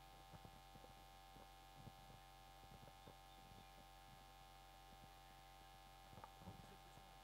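Near silence: a steady electrical mains hum, with a few faint soft knocks.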